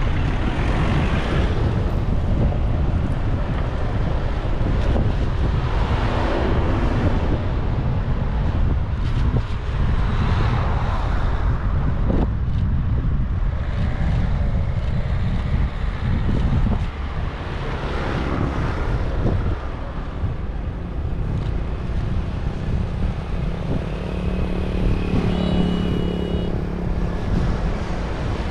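Strong wind buffeting the microphone over a deep, steady rumble, with a brief higher-pitched engine-like tone near the end.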